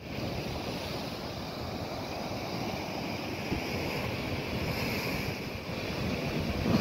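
Rough sea surf breaking on shore rocks and washing across a coastal road: a steady rushing, growing a little stronger near the end, with wind on the microphone.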